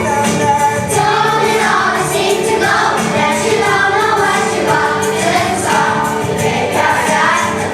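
A group of children singing together with instrumental accompaniment.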